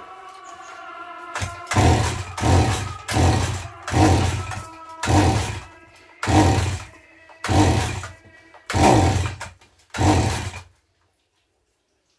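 Chinese-made two-stroke chainsaw engine revved in about nine short, irregular bursts. It cuts off suddenly near the end.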